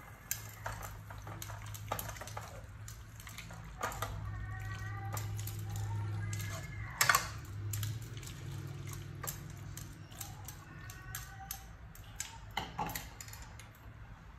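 Metal ladle stirring a pot of vegetable soup, clinking and scraping against the metal pot over and over, with one louder knock about seven seconds in. A low steady hum runs underneath.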